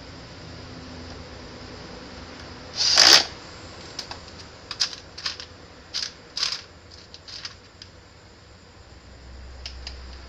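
Small metal screws and parts clinking and rattling as a hand picks through a tray of hardware: a scattered run of short clicks. One louder rustling clatter comes about three seconds in.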